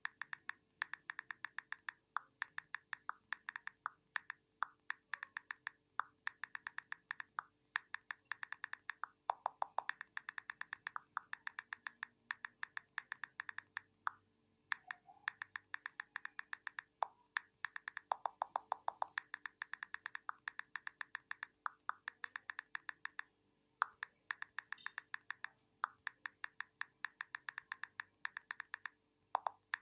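Mobile phone on-screen keyboard click sounds: quick runs of short clicks, about ten a second, broken by brief pauses, with a few lower-pitched clicks among them.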